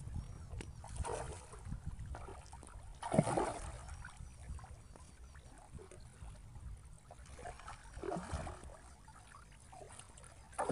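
A hooked rohu splashing and thrashing at the surface at the shoreline. There are several bursts of splashing, the loudest about three seconds in, over a steady low rumble.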